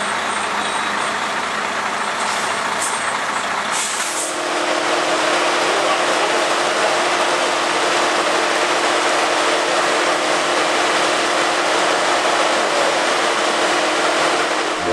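Heavy diesel engines of a truck and a truck-mounted mobile crane running steadily. About four seconds in, the sound grows louder and a steady hum sets in.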